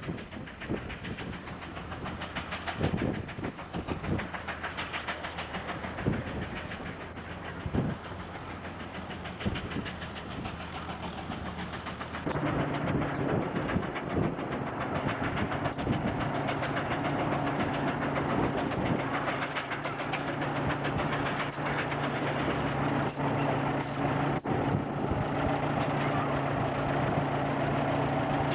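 1914 Rumely steam tractor working hard under the load of an eight-bottom plow, its exhaust chuffing in an even rhythm. About twelve seconds in, the sound changes abruptly to a louder, steady engine drone at a constant pitch, with occasional knocks.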